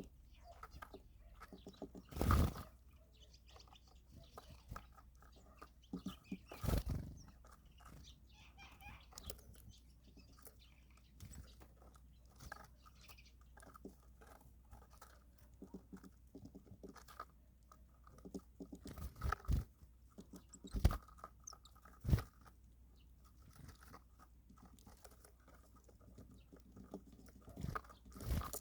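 Birds feeding: many small clicks and crunches of seeds being pecked and cracked, with a handful of louder knocks scattered through, over a steady low hum.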